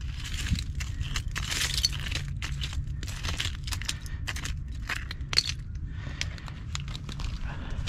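Loose oyster shells crunching and clinking underfoot and as they are shifted by hand: an irregular run of crackly clatters.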